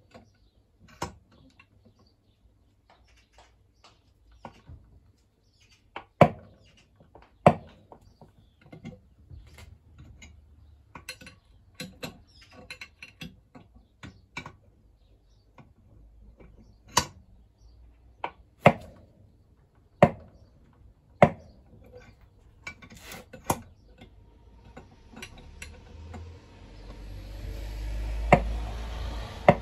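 Sharp metallic clinks and ticks of a spanner working the screws of a crankcase-splitting puller on a two-stroke motorcycle engine, as the cases are drawn apart. A dozen or so loud clinks come at irregular spacing, with softer ticks between, and a low rumbling noise builds near the end.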